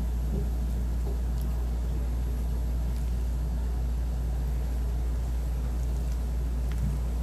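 A steady low rumble, unchanging in level, with a few faint clicks over it.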